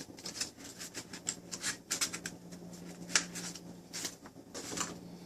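Cardboard box and paper packaging being handled as accessories are taken out of a tablet's box: irregular rustling with short crisp clicks and taps.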